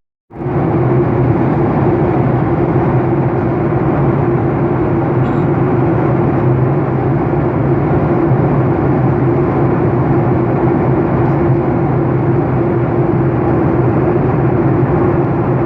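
Steady engine and airflow drone of a passenger plane heard on board, with a constant low hum. It starts abruptly just after a brief silence.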